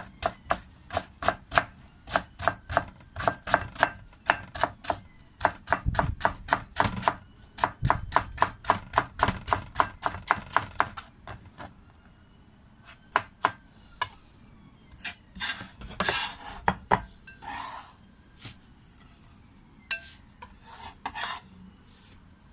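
Knife chopping food on a cutting board in a quick, even rhythm of about four strokes a second. The chopping stops about halfway through, followed by a few scattered knocks and scrapes.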